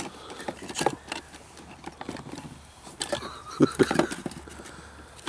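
Scattered clicks, knocks and rattles of gear being handled in a model-flying field box, with a short run of louder knocks a little past halfway.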